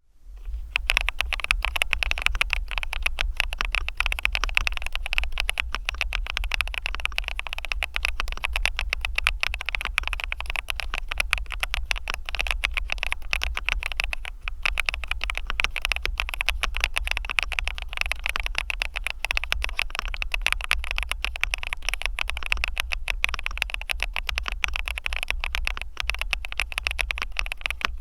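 Continuous fast typing on a Dareu EK87 Pro wired mechanical keyboard with linear Cloud switches: a dense, even clatter of keystrokes starting about half a second in, over a steady low hum.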